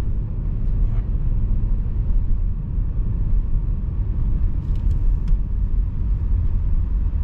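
Steady low rumble of engine and tyre noise heard from inside the cabin of a moving car.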